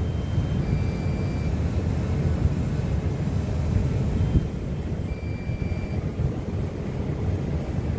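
Wind buffeting the microphone in a low, uneven rumble, with a few faint short high beeps every few seconds.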